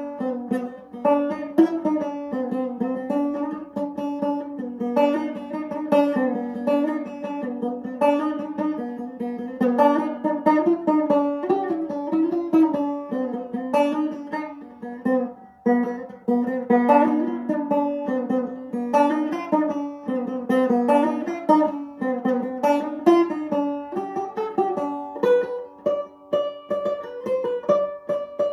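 Banjo played solo: a steady stream of quickly plucked notes, explored freely rather than picked in bluegrass style.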